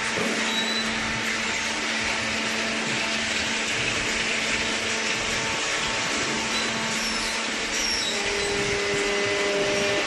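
Steady, even whirring of machinery running in a paper baling plant, with a faint hum under it; a second low steady tone joins in near the end.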